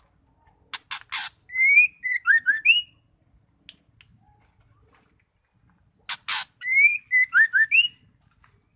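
Female white-rumped shama calling in two matching bouts about five seconds apart. Each bout is three harsh rasping notes followed by a quick run of short, rising whistled notes. This is the hen's call that sets male shamas off singing.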